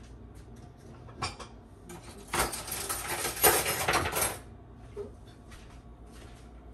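Kitchen utensils clattering off to one side for about two seconds, with a single light knock before and after.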